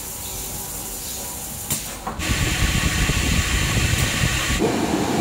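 An automatic gluing machine's conveyor-belt cleaning device running. A steady mechanical hum gives way about two seconds in to a louder hiss over a low rumble.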